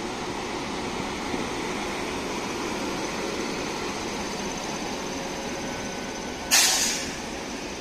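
WAP-7 electric locomotive and its train passing slowly at close range, with a steady hum and rumble. About six and a half seconds in, a sudden loud hiss lasts about half a second and fades.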